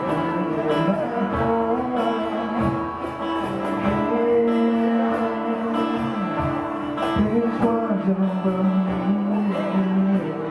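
Live band playing a song: a voice singing long held notes over guitar.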